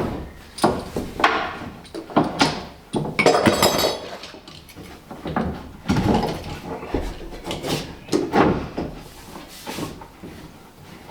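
Irregular knocks and thuds on wood, about a dozen over the stretch, as a tongue-and-groove bulwark plank is worked into place on the hull.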